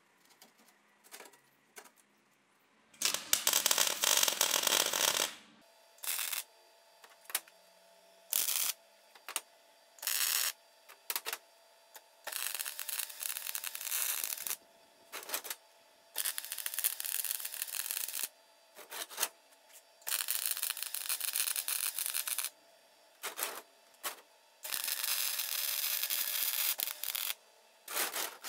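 Wire-feed MIG welder welding steel tube to a steel plate, in bursts: a short spell of quiet handling at first, then five runs of two to three seconds each with many short tack-like spurts between them. The welder is a cheap, old one that the owner says is not working 100%.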